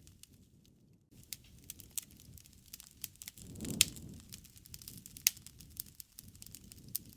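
Wood campfire crackling, with irregular snaps and pops over a low rush of flame. Two sharp pops stand out, about four and five seconds in, the first on a brief swell of the low flame sound.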